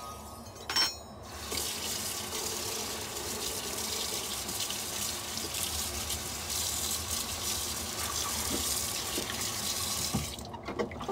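Kitchen tap running into a plastic basin of lettuce in a stainless steel sink, with water splashing as a hand swishes the leaves. A short knock comes just before the water starts, and the flow stops shortly before the end.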